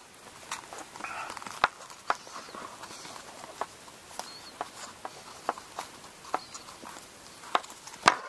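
Irregular small clicks and taps with light rustling as a thin metal pick works at the knot of a zori's front thong cord to loosen it. A louder click comes just before the end as the sandal is handled.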